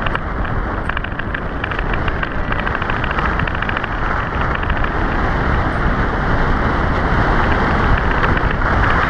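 Wind rushing over the microphone and the soapbox cart's wheels rumbling on asphalt as it coasts downhill, with a fast rattle over the first few seconds. The noise grows slightly louder as the cart picks up speed.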